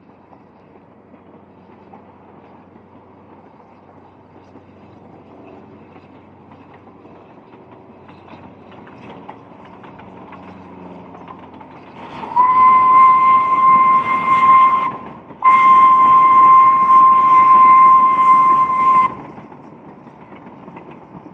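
Narrow-gauge steam locomotive hauling a coach train and drawing nearer, its running slowly growing louder. About halfway through its steam whistle sounds two long blasts at one steady pitch, the second a little longer than the first.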